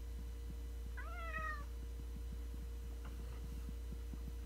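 Domestic cat meowing to demand a treat: one clear meow about a second in that rises then falls, and a fainter one about three seconds in, over a steady low hum.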